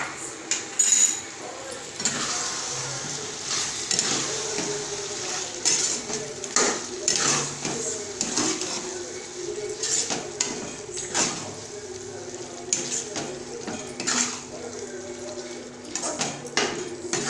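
Metal spatula scraping and clanking against a kadai while the chicken gravy in it is stirred, in irregular strokes.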